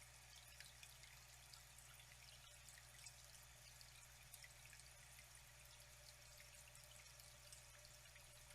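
Faint flowing water trickling and splashing steadily, with many small drips and splashes, over a low steady hum.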